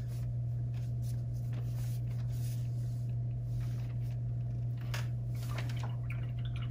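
A steady low hum with faint, scattered scrapes and taps from small brushes being worked over painted rocks. There is one sharper tap about five seconds in.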